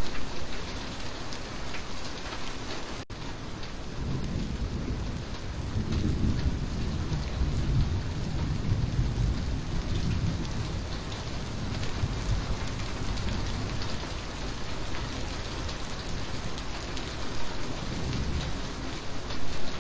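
Steady, heavy rain, with a low thunder rumble swelling and fading in the middle.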